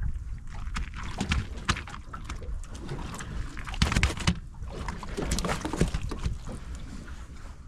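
Water slapping and splashing irregularly against the hull of a small welded aluminum boat.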